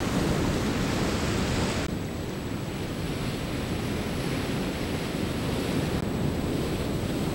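Ocean surf washing over a rocky shoreline, mixed with wind buffeting the microphone: a steady, low rush of noise that shifts slightly about two seconds in and again near the end.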